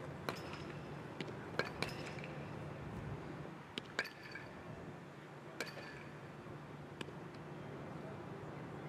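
Sharp taps and clinks with a short metallic ring, several in quick pairs, as baseballs meet the catcher's mitt and gear, over a low steady hum.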